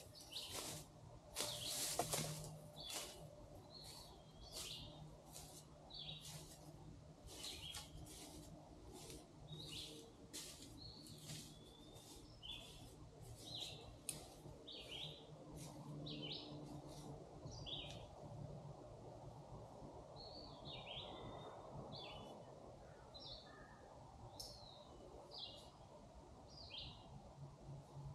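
Footsteps crunching at a walking pace, about one and a half a second, growing lighter and sparser after about 18 seconds, with high bird chirps.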